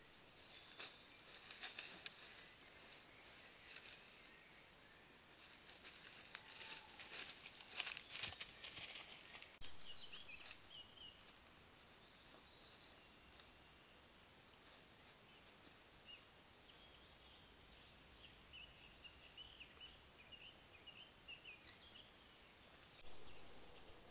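Faint woodland ambience picked up by a trail camera's microphone: a steady hiss with scattered rustling and crackling in dry leaf litter, busiest between about five and ten seconds in, then short high bird chirps and song phrases over the following ten seconds.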